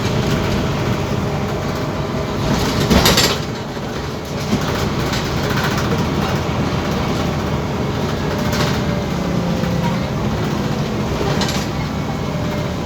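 Scania OmniCity city bus under way: steady engine and road noise with the body rattling. A short, louder rush of noise comes about three seconds in.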